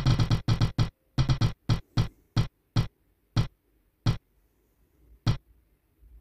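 Spin-the-wheel name-picker's tick sound effect as the wheel slows: short pitched ticks, rapid at first, then spaced farther and farther apart, the last one about five seconds in as the wheel comes to rest on a name.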